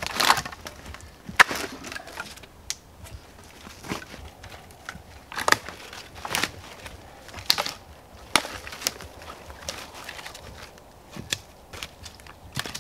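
Dry dead wooden poles and sticks knocking and clattering as they are set against a lean-to shelter frame, with brittle twigs cracking. About a dozen sharp knocks at irregular intervals.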